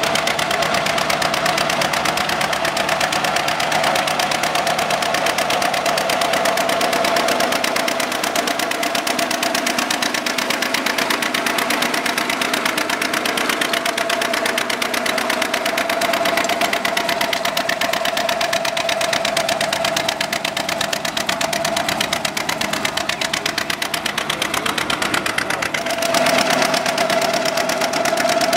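Vintage John Deere two-cylinder tractor engine running steadily with an even, rapid firing beat while the tractor pulls a single-bottom plow.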